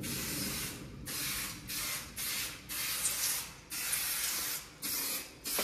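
Aerosol spray-paint can spraying graffiti onto a concrete tunnel wall: a hiss in about seven bursts, some short and some about a second long, with brief gaps between.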